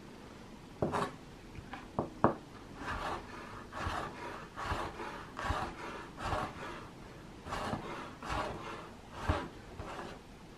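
Kitchen knife slicing orange peel into strips on a wooden cutting board: a run of short, irregular chops and scrapes as the blade meets the board, with a few sharper knocks.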